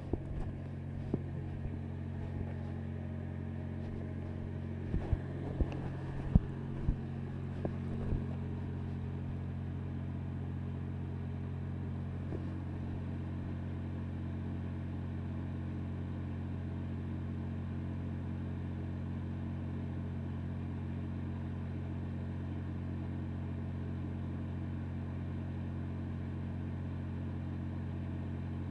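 Steady low engine hum running at an even pitch, with several sharp knocks and clicks in the first eight seconds.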